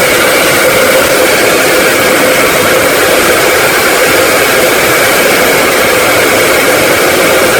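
Electric hand dryer running steadily: a loud, even rush of blown air with a faint steady motor hum through it.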